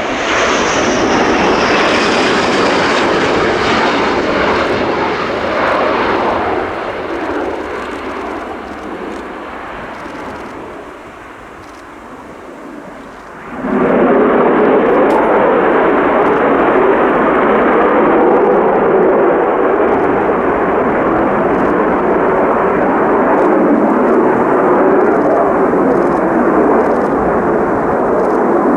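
Military jet aircraft passing during touch-and-go practice. Its high whine falls in pitch as it goes by and the noise fades over about ten seconds. About fourteen seconds in, loud jet noise starts abruptly and holds steady to the end.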